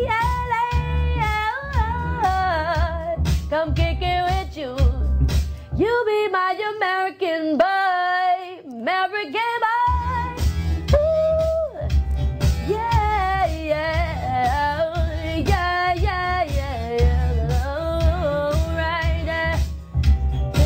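Pop-R&B song with a woman singing drawn-out, wavering vocal runs over a bass-heavy beat. The bass and drums drop out for about four seconds near the middle, leaving the voice nearly alone, then come back.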